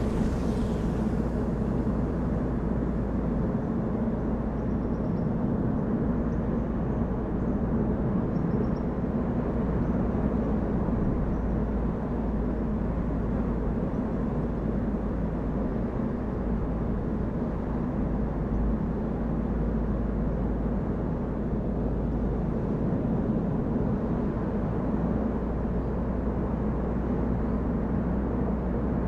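A car driving at a steady pace: a continuous low rumble of engine and tyre noise that barely varies throughout.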